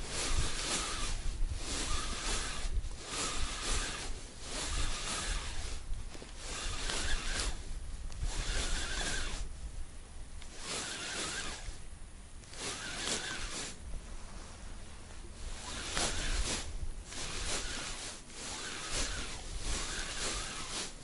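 Spinning reel being cranked in about a dozen short bursts of a second or so with brief pauses, a jerky stop-and-go retrieve of a lure, the gears giving a faint whine under the whirr of the line winding on.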